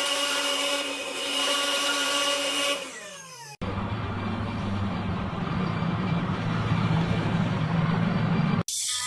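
A steady mechanical whine that winds down in pitch and fades about three seconds in, then an abrupt switch to a low, rumbling motor drone, which cuts off suddenly near the end.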